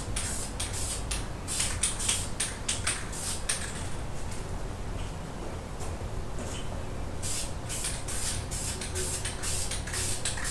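Aerosol can of high-temperature caliper paint spraying in many short bursts as a coat goes onto brake calipers, with a pause of a few seconds in the middle before the bursts start again.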